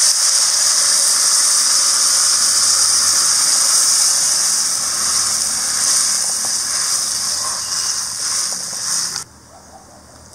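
Water poured into a hot kadai of potatoes fried in oil and spices, sizzling and hissing loudly with steam as it hits the pan: the water added for the potatoes to boil in. The hiss cuts off suddenly near the end.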